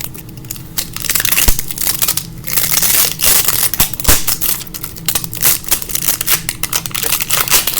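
Plastic packaging crinkling and tearing as a cloud slime container is worked open by hand, with a dense run of sharp crackles and clicks.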